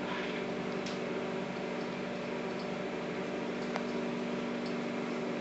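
Microwave oven running with a steady hum, and one faint tick a little under four seconds in.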